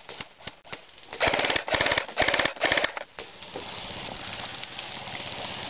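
Airsoft electric gun firing on full auto: four short bursts of rapid clicking, typewriter-fast, a little over a second in, after a few scattered single clicks. A steady hiss follows.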